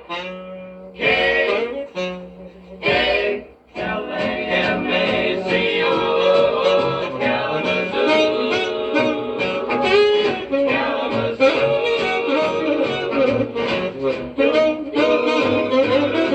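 Big-band swing instrumental break: a few short brass-and-saxophone chords with gaps between them, then the full band playing on steadily from about four seconds in.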